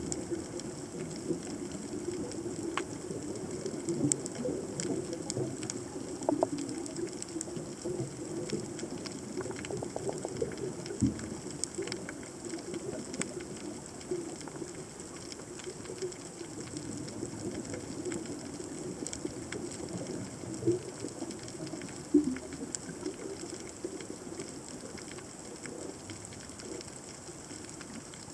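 Underwater ambience picked up by a submerged camera: a steady low wash of moving water with a constant scatter of sharp clicks and crackles, a few of them louder.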